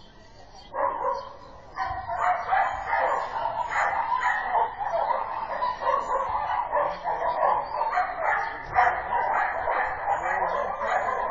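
Dog barking repeatedly in quick succession, starting about a second in and keeping on without a break.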